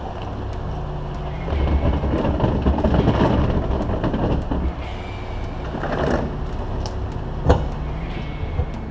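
Ford Lobo 2015 pickup with its 3.5-litre EcoBoost V6 crawling slowly in four-wheel-drive low over a dirt track: a low steady engine hum under the crunch and rumble of the tyres on gravel and stones, heaviest in the first half. A single sharp knock comes about seven and a half seconds in.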